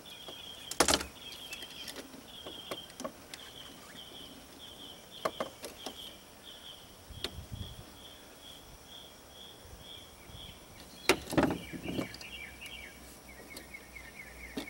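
Sharp metal clicks and knocks as a windshield wiper arm is handled and fitted onto the wiper motor's shaft, the loudest about a second in and again about eleven seconds in. A steady run of high, evenly repeated chirps goes on behind it.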